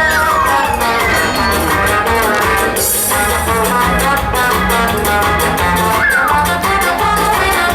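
Lively Latin-style instrumental music with guitar over a steady beat, with a falling swoop at the start and again about six seconds in.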